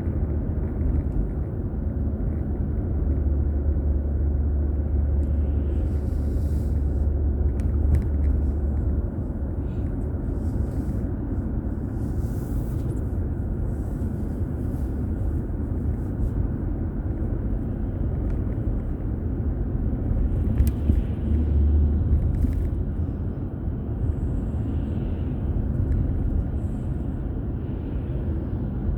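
Car driving on the road, heard from inside the cabin through a dashboard camera: a steady low rumble of engine and tyres. The deepest rumble grows louder for several seconds about three seconds in, and again briefly about twenty seconds in.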